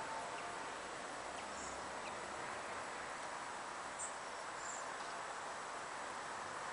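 Quiet outdoor garden ambience: a steady hiss with a few faint, short high-pitched chirps, two of them close together a little past halfway.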